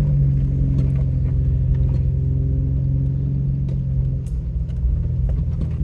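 Vehicle engine droning steadily from inside the cab while driving a rough off-road trail, its note dropping a little about four seconds in as it eases off. Scattered light clicks and rattles sound over the drone.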